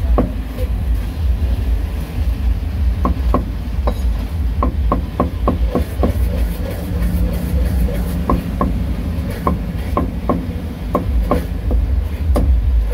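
Steel meat cleaver chopping braised intestines on a thick round wooden chopping block: sharp knocks in short quick runs with pauses between, over a steady low rumble.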